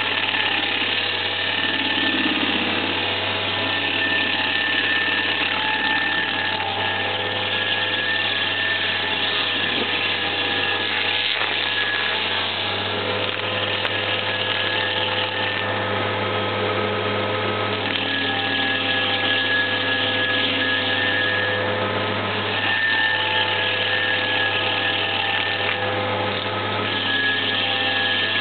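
Homemade stump grinder's cutting wheel chewing into a tree stump, over the steady low hum of the engine of the machine that carries it, with a constant whine running above. The grinding swells and eases a little as the wheel is worked across the stump.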